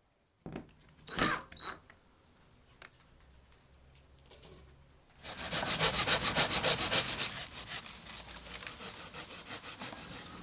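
Rapid rasping strokes of a hand tool working wood, many strokes a second, coming in loudly about five seconds in and then tailing off, after a few sharp knocks near the start.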